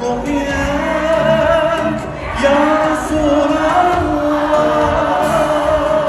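Live devotional song (sholawat) performed by a male lead singer with backing vocalists and a band, the voices holding long notes with vibrato.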